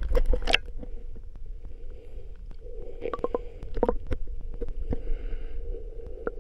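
Muffled underwater sound picked up by a submerged camera: a steady low rumble of water against the housing, a faint steady hum, and scattered clicks and crackles throughout.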